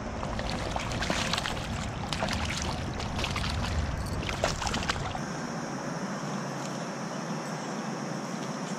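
A hooked brown trout splashing at the surface of a shallow creek as it is drawn in on the line, in a run of irregular sharp splashes. About five seconds in this gives way abruptly to a steady hiss of flowing creek water.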